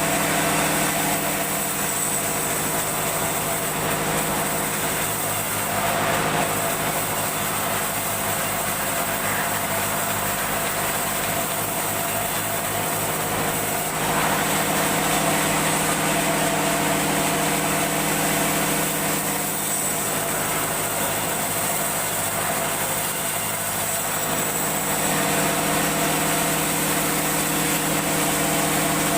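Motor-driven saw running steadily through mahogany. Its note changes about a second in and returns to the first note about twenty-five seconds in, which fits the machine working under load and then freeing again.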